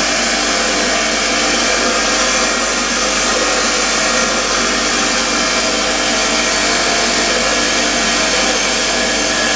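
Bench grinder running with a wire wheel, a Volkswagen engine valve held by hand and turned against it: a steady whirring hiss of wire bristles scrubbing carbon, scale and rust off the valve.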